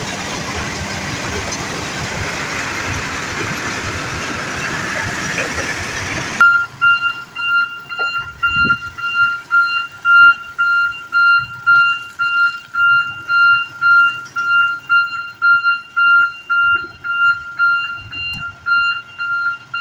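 Dump truck running with a steady loud rushing noise that cuts off suddenly about six seconds in. From then on, a truck's reversing alarm beeps steadily in one high tone, about one and a half beeps a second, as the loaded dump truck backs up.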